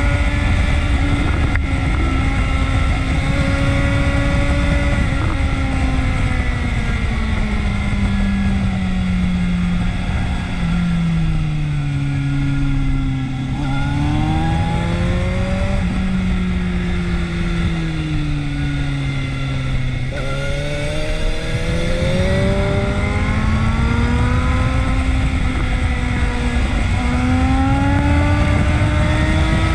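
Motorcycle engine running under way, its pitch sinking slowly as it slows, rising, sinking again, then climbing steadily as it speeds up and dropping off right at the end, with a steady rush of wind noise underneath.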